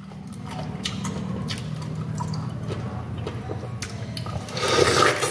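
Mouth sounds of someone eating a fresh peeled pineapple: scattered small clicks of chewing, then a louder bite into the fruit about four and a half seconds in.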